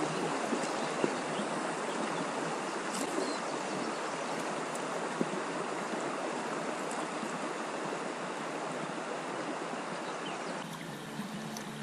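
Steady rush of river water flowing over a riffle around a drifting inflatable boat, easing off a little near the end.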